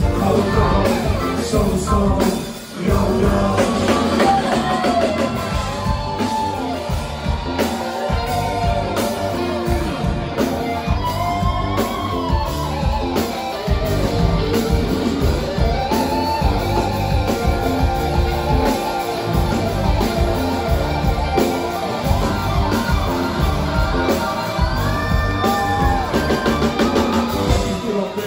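Live funk-rock band playing loud: drum kit, bass guitar, electric guitar and saxophone, with singing over the music. The music dips briefly about three seconds in.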